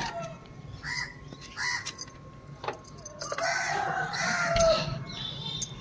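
A rooster crowing, one long call starting about three seconds in, after two short bird calls.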